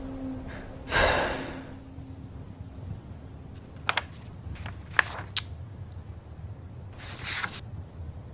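Sound effects from an animated short film: a breathy rush like a gasp about a second in, a few sharp clicks in the middle, and another short breathy rush near the end, over a low hum that fades out.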